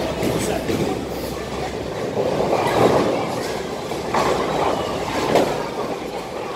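Bowling alley din: bowling balls rumbling down the wooden lanes, with sharp pin crashes and clatters several times.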